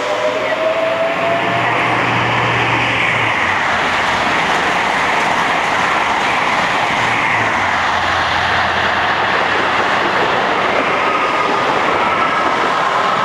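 East Coast express train passing through the station at speed: a loud, steady rush of wheels on rail and air. In the first two seconds a rising motor whine fades as a suburban electric multiple unit accelerates away.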